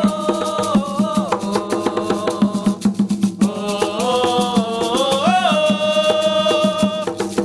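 Umbanda sung prayer: voices singing a chant with long held, gliding notes over a steady, fast beat of hand drums.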